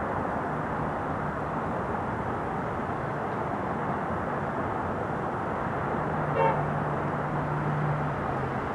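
Airbus A380's four jet engines giving a steady, even roar as it climbs away after takeoff. A short car-horn toot cuts through about six and a half seconds in.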